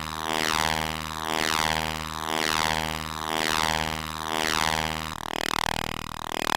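Eurorack modular synthesizer playing a drone: a steady low buzzy tone under a falling filter sweep that repeats about once a second, the level swelling with each sweep. The low steady tone cuts out about five seconds in, leaving the sweeping sound.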